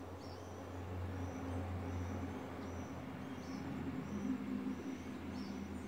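A steady low motor hum runs throughout, with short high chirps repeating about once or twice a second over it.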